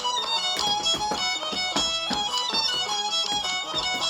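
Instrumental break in a gato, an Argentine folk song: a fiddle plays the melody over plucked and strummed guitar in a quick, even rhythm.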